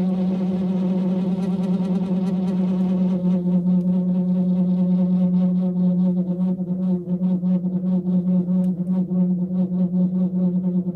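A steady droning tone held on one low pitch, its overtones wavering, with a quick pulsing in the loudness through the second half.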